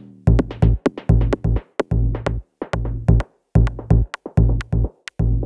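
Background electronic music with a drum-machine beat and heavy bass, stopping abruptly near the end.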